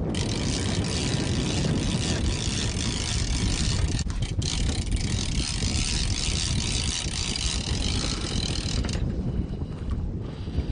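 Steady noise aboard a boat at sea: a low rumble under a hiss of wind and water, with the hiss thinning out about nine seconds in.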